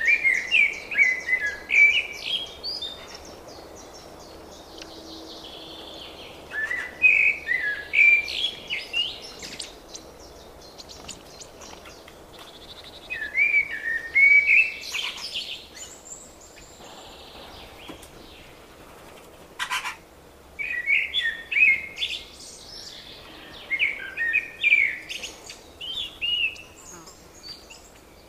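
A songbird singing about five short warbling phrases a few seconds apart, with a steady faint background hiss. One brief sharp click-like note comes about two-thirds of the way through.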